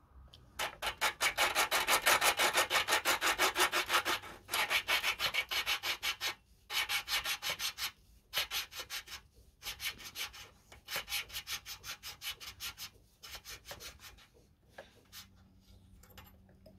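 Valve lapping by hand on a lawnmower engine: a valve twisted back and forth in its seat with a suction-cup lapping stick and grinding paste, a gritty rasping in several bursts of quick strokes, about six a second, growing weaker in the last few seconds. The lapping reseats a valve that was leaking and costing the engine compression.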